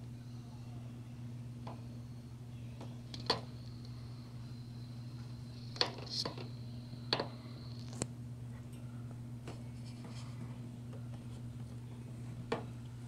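A steady low electrical hum, with about six light, sharp clicks or taps at irregular intervals.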